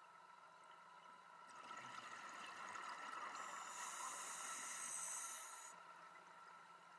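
Scuba diver breathing through a regulator underwater: a hissing, bubbling breath that builds about a second and a half in, grows loudest and hissier near the middle, and stops abruptly about six seconds in.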